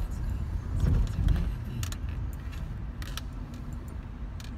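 Car driving, heard from inside: a steady low rumble of engine and road noise that swells briefly about a second in, with a few short ticks of something rattling.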